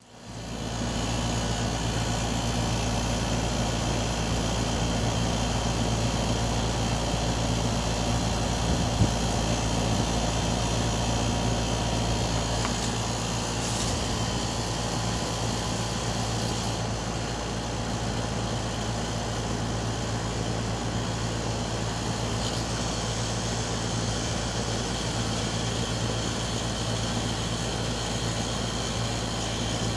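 Air conditioner running with a steady low hum and an even whooshing wash over it, a noise its owner calls weird. A single sharp click sounds about nine seconds in.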